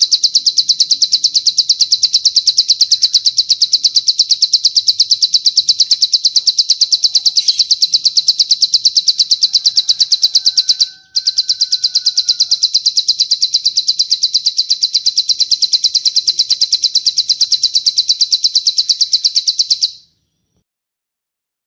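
Cililin bird song: a long, rapid, very even trill of high notes. It breaks off for a moment about halfway through and stops about two seconds before the end.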